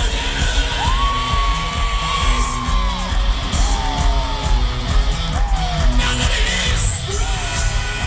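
Rock band playing live in an arena, loud drums and bass under distorted guitar, with long held, yelled vocal notes that bend in pitch.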